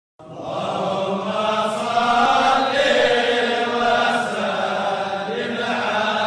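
Sustained chanting by voices, with long held notes, coming in just after the start.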